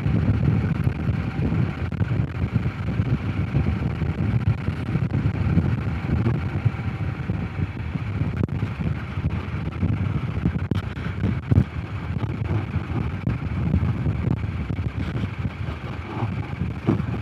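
Honda CRF250 Rally's single-cylinder engine running steadily as the motorcycle rides along, with wind noise on the microphone.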